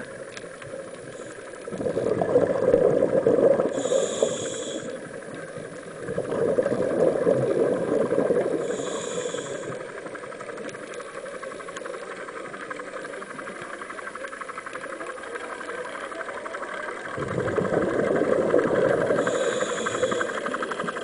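A scuba diver's regulator heard underwater: three loud bouts of exhaust bubbles rushing and crackling, each with a short hiss, over a steady underwater fizz between breaths.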